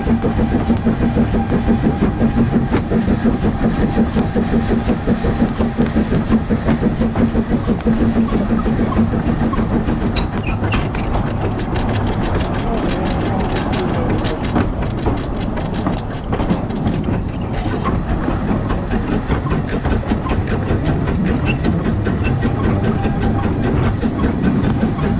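Running noise of a narrow-gauge Bagnall 0-4-0 saddle tank steam locomotive climbing a grade: a steady, rhythmic clatter of wheels on rail, with a low steady tone in the first several seconds. The sound goes duller for several seconds in the middle.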